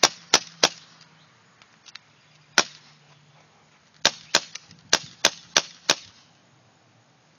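CO2 airsoft revolver dry-firing with its BBs all shot, each trigger pull giving a sharp pop. There are three quick pops at the start, a single one about two and a half seconds in, then a quick string of six between about four and six seconds.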